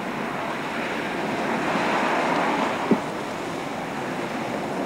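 Storm noise: a steady rush of wind and rain buffeting the microphone, swelling about two seconds in, with one short thump about three seconds in.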